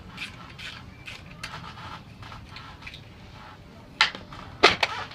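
Work noise from dismantling an aluminium conservatory roof: a run of short creaks and scrapes from tools on the aluminium sections, then two sharp knocks about four seconds in and again a moment later.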